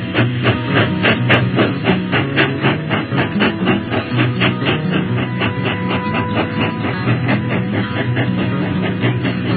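Background music with guitar playing a steady rhythm.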